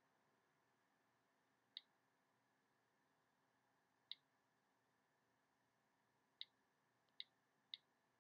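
iPhone on-screen keyboard click sounds as keys are entered by flick input: five short, faint clicks, spaced a couple of seconds apart at first, then three in quicker succession near the end.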